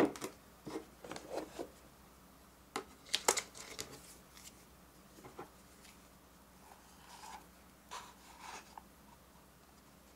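Handling of a plastic bento box shaped like a freight container: a series of light plastic clicks and taps. The loudest come at the very start and about three seconds in, with softer taps after that.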